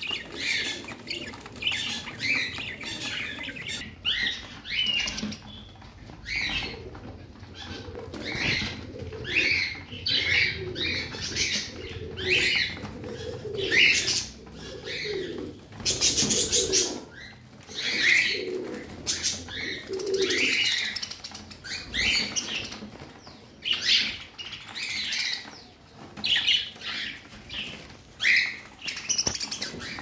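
A flock of zebra finches calling, short nasal beeps overlapping in quick, uneven succession, with wings fluttering now and then.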